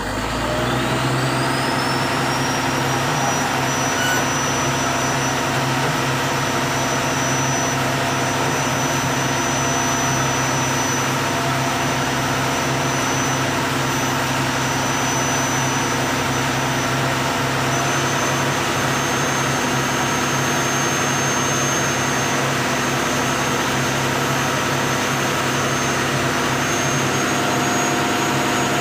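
Fishing trawler's engine and deck winch machinery cut in abruptly and run loudly and steadily, with several steady tones. A high whine rises in pitch over the first couple of seconds, then holds.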